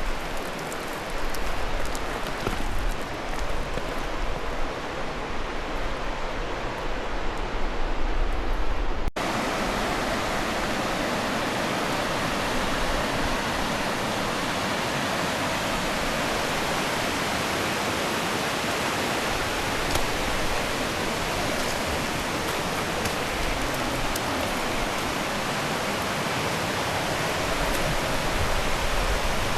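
Fast mountain river rushing, a steady loud roar of water. About nine seconds in it cuts abruptly to a steadier, brighter rush; before the cut there is an uneven low rumble.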